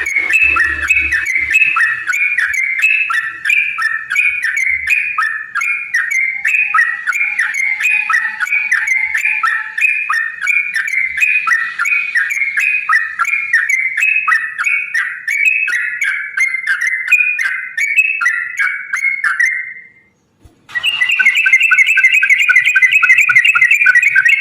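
Yellow-vented bulbul (trucukan) singing a long, fast chattering run of bubbly notes, pausing briefly about twenty seconds in and then starting another rapid burst.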